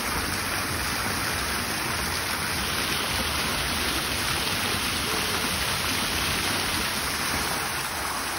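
Fountain jets splashing steadily into the pool below them.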